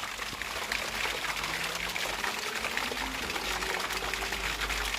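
Rain falling steadily: an even hiss of water with many small drop ticks.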